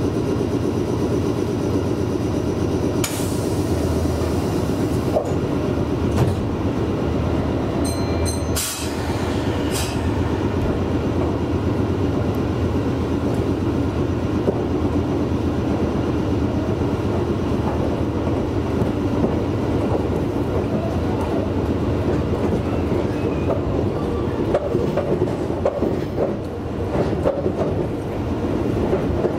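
Meitetsu 6800 series electric train running along the line: a steady rumble of wheels on rail with scattered clicks from the track. A brief hiss comes about three seconds in and again about nine seconds in.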